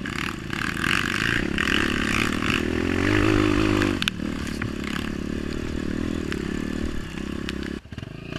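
Honda CRF 230 trail bike's single-cylinder four-stroke engine running, revving up about three seconds in and dropping back a second later, then running steadily, with a few sharp clicks and knocks.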